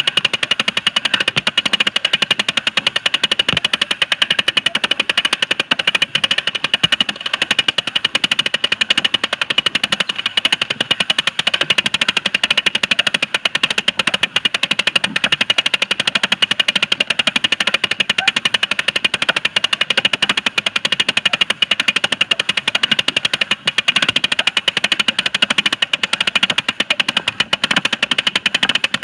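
A Kenner Star Wars toy film viewer's film-advance mechanism clattering in a fast, even run of clicks as the film loop plays.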